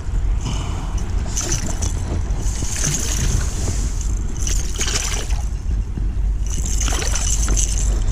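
Steady low wind rumble on the microphone, with four or five hissy swishes about a second long each.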